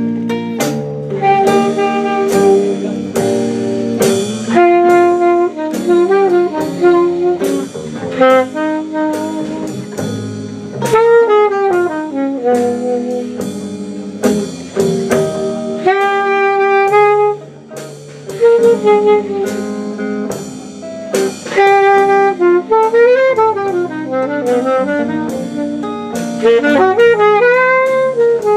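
Traditional jazz band playing an instrumental chorus: a saxophone solo with bending, gliding phrases over drum kit and guitar accompaniment.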